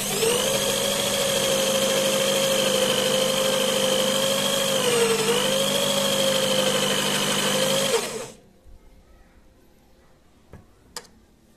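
Electric drill motor running at steady speed with a high whine that dips briefly in pitch about halfway, then switching off about two-thirds of the way through; two light clicks follow near the end.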